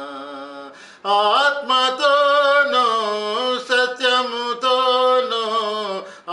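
A man singing a Telugu Christian worship song unaccompanied. A held note fades out, then about a second in he starts a new phrase of long sustained notes that slide between pitches.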